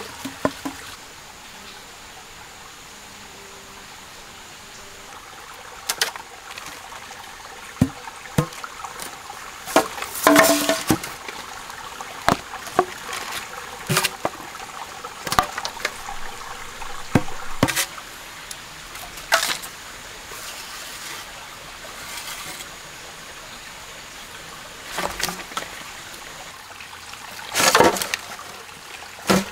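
A stream trickling steadily, with scattered sharp knocks, cracks and rustles as green bamboo tubes are handled and stripped; the loudest rustling comes at about ten seconds in and again near the end.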